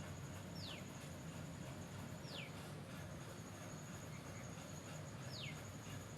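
Outdoor ambience: a steady high-pitched insect drone, with three short falling whistle notes from a bird spread through it, over a low background rumble.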